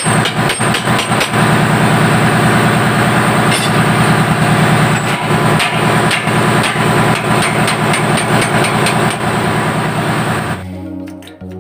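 Marine diesel engine running loudly, a dense rapid knocking over a steady low drone. About ten and a half seconds in it cuts off abruptly to quieter background music.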